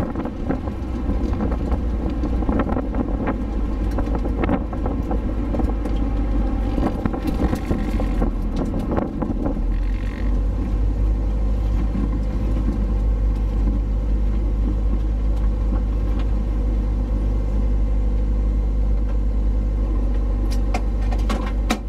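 A car's engine and road noise heard from inside the cabin while driving, as a steady low drone. The engine note shifts a little as the car takes the bends. A few light knocks and clicks come through, mostly in the first half and again near the end.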